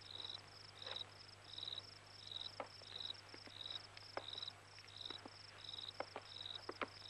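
Crickets chirping in a steady, even rhythm of short high chirps, with a few faint taps scattered through.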